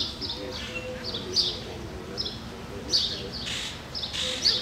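A small bird chirping over and over in short high chirps, the loudest about every one and a half seconds with softer ones between. Two brief hissing noises come near the end.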